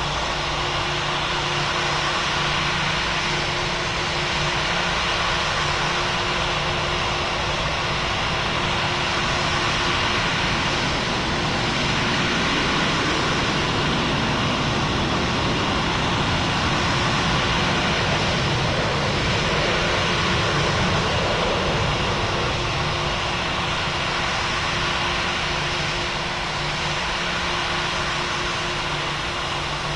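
Airplane passing, its engine noise a steady rush that builds toward the middle and then eases off.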